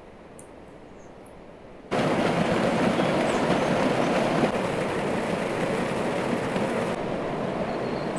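Rushing water of a mountain spring and stream tumbling over rocks: a steady rush that cuts in suddenly about two seconds in, after a quiet start.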